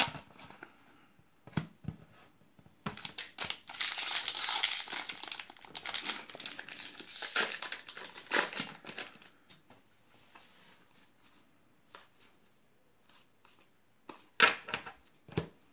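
Foil wrapper of a Magic: The Gathering Aether Revolt booster pack being torn open and crinkled, a dense crackling run of several seconds, followed by scattered light ticks and rustles.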